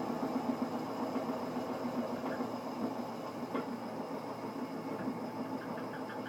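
Washing machine running with a steady rattling rumble and a couple of sharper clicks. The noise continues even though two of its vibration shock absorbers have been replaced.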